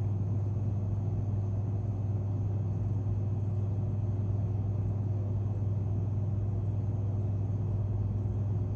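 Steady low hum of store background noise, unchanging throughout, with no distinct events.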